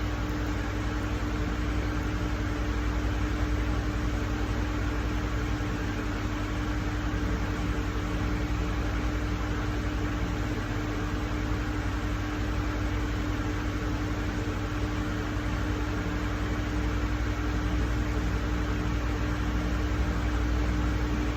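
Steady mechanical hum with one constant low tone over an even hiss, unchanging throughout.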